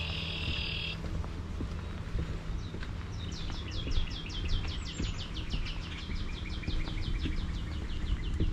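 Songbird singing a long run of rapid, evenly repeated high chirps, about five a second, each note slurring down, starting about three seconds in and running several seconds. A short buzzy note sounds at the very start, over a steady low rumble.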